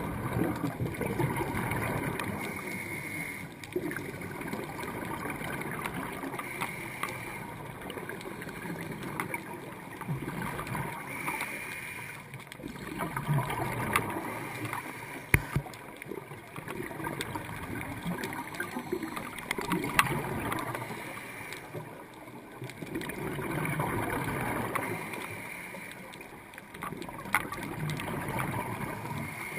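Scuba breathing heard underwater: a diver's exhaled bubbles gurgling in swells every few seconds, with a few sharp clicks.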